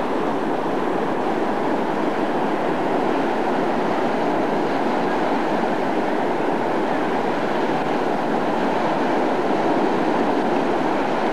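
Fast floodwater rushing past as a loud, steady, unbroken noise.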